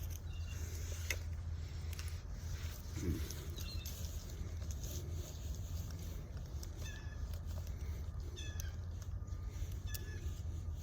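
A bird calling outdoors in short, repeated calls every second or two, over a steady low hum.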